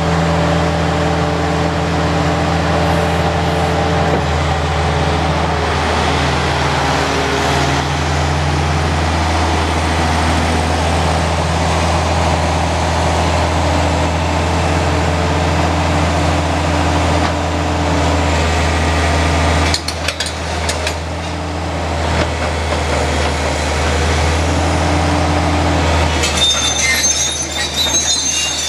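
Fiat-Hitachi EX455 crawler excavator's diesel engine running steadily, its pitch shifting now and then as the hydraulics take load. Near the end, metallic clanking and squealing from the steel tracks join in.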